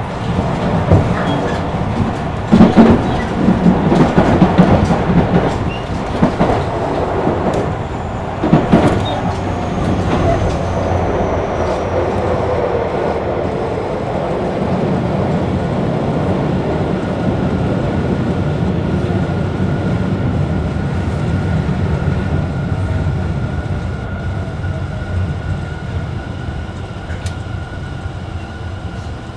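Running sound aboard a Tobu 50000-series electric commuter train. The wheels knock sharply over rail joints and points in the first nine seconds, then the train runs steadily with a thin high whine, and the sound eases off near the end.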